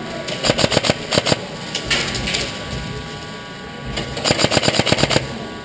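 Airsoft gun firing two bursts on full auto, about a second each with roughly ten shots a second, one near the start and one near the end.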